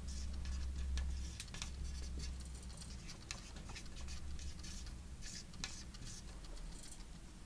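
Pen scratching on paper in short, irregular strokes, over a low steady hum.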